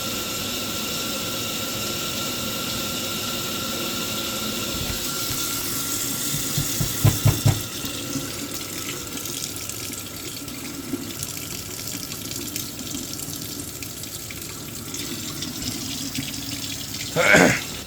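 A steady rush like running water, with a faint steady whistle over it. There are a few quick low knocks about seven seconds in, and a short louder sound near the end.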